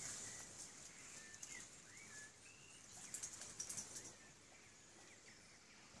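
Faint birdsong: scattered short chirps and whistles over a steady high-pitched hiss, with a brief patch of quick faint clicks about three seconds in.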